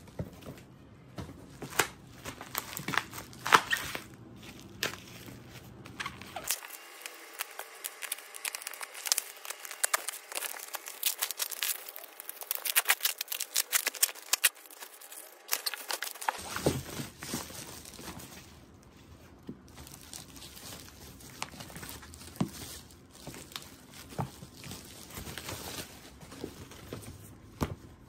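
Plastic bubble wrap crinkling and rustling as it is handled and pulled away from wrapped books, with light knocks and taps from the unpacking. The crackling is densest in the middle.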